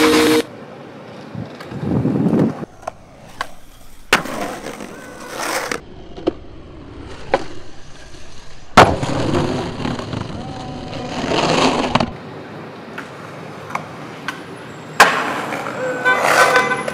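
Skateboard wheels rolling on pavement in several runs, with sharp pops and landing smacks of the board; the loudest landing comes about nine seconds in.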